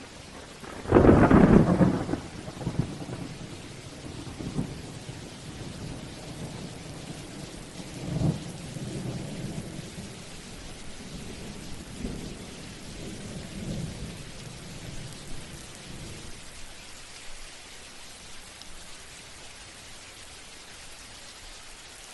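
Thunderstorm: a loud thunderclap about a second in, then several fainter rolls of thunder that die away by about sixteen seconds, over steady rain.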